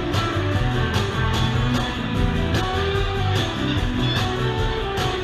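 Live band playing an instrumental passage without vocals: guitar over drums and bass with a steady beat.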